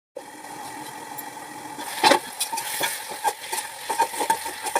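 Chicken, tomato and capsicum frying in a karahi with a steady sizzle. From about two seconds in there are repeated scrapes and knocks of a utensil against the pan as the food is stirred.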